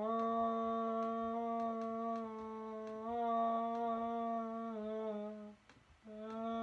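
A person humming a slow melody in long held notes, stopping briefly about five and a half seconds in, then taking up a new note that drops lower near the end. A few faint clicks sound underneath.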